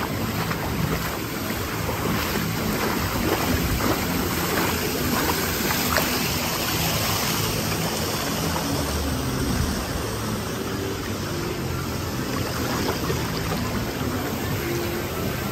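Lazy-river water rushing and lapping close to the microphone, which is held just above the surface as it drifts with the current; a steady wash without a break.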